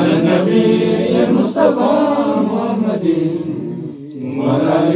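Men's voices chanting an Arabic mawlid menzuma together, unaccompanied, in long drawn-out melodic phrases, with a brief breath between phrases about four seconds in.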